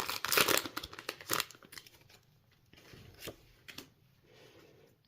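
Foil Pokémon booster pack wrapper torn open and crinkled for about the first second and a half, then quieter rustling and light clicks as the cards are handled.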